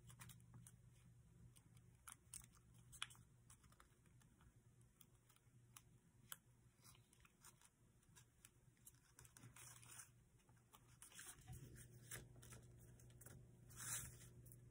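Faint crackling and rustling of a paper origami model being folded by hand during a reverse fold, with scattered small clicks and a longer rustle near the end.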